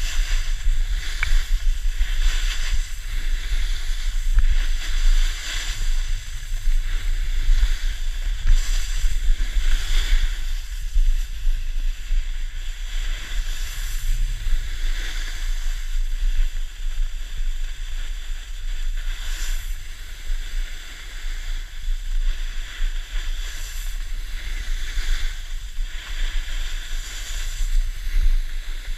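Wind buffeting an action camera's microphone in a low rumble, over the steady hiss of edges sliding and carving over packed snow, swelling and easing with the turns.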